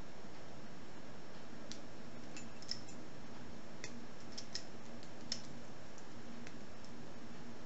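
Light, scattered clicks and taps of a small titanium padlock and its keys being handled, about nine over the stretch, over a faint steady low hum.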